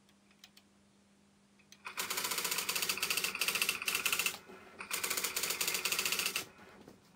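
Olympia electric typewriter driven as the computer's printer, hammering out text at high speed in two bursts with a short pause between, preceded by a few faint key clicks.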